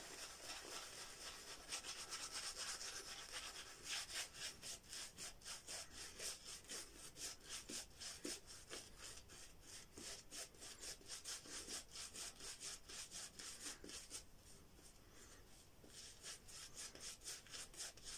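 Vielong 24 mm horsehair shaving brush working Mitchell's Wool Fat soap lather over the face, its bristles rubbing wetly over lather and stubble. Faint, quick, even strokes, several a second, with a short pause about three-quarters of the way through.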